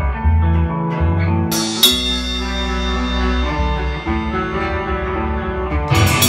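Amplified electric guitars playing held, ringing notes, with a cymbal crashing twice about a second and a half in. Near the end the Mapex drum kit comes in with a burst of drum and cymbal hits.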